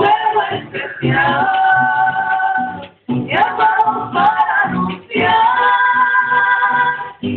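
Mariachi band playing and singing: held sung and violin lines over guitars, in short phrases with brief breaks between them.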